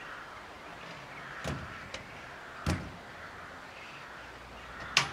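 Hinged sheet-metal engine-compartment door on a diesel locomotive being handled and shut: four short knocks and clanks, the loudest a sharp clank near the end.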